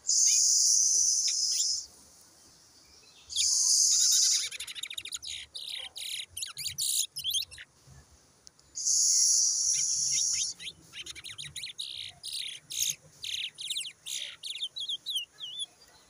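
Caged towa-towa (chestnut-bellied seed finch) singing: runs of quick, sharp chirping notes. Three loud hissing bursts of a second or two each, one at the start, one about three seconds in and one about nine seconds in, are each followed by a run of chirps.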